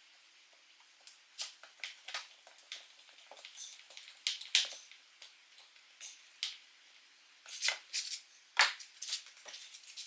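Irregular clicks, taps and scrapes of hand work on the cabinet's wooden leg and its screws, with sharper knocks about four and a half and eight and a half seconds in.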